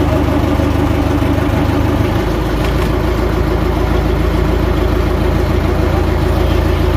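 Boat engine idling steadily, a low even drone with no change in speed.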